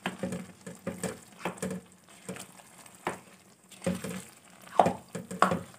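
A spatula stirring mashed boiled turnips into cooked mutton in a non-stick wok, scraping against the pan in about ten irregular strokes, the loudest near the end, over a low sizzle of frying.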